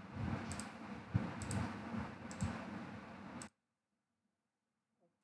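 Computer mouse clicking a few times, some clicks in quick pairs, over steady microphone hiss and low room hum. The hiss cuts off suddenly about three and a half seconds in.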